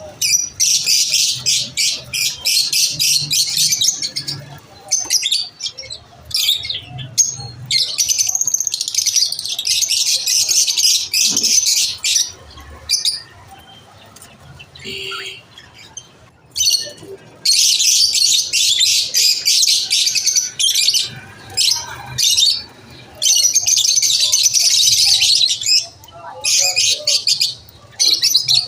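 Lovebirds chirping and chattering in long bouts of rapid, high-pitched calls, with a lull of a few seconds about halfway through.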